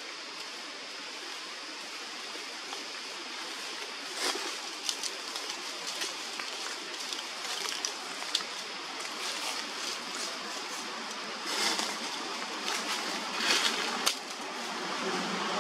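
Steady outdoor background hiss, with scattered light clicks and rustles about four seconds in and again near the end, the loudest a sharp click about fourteen seconds in.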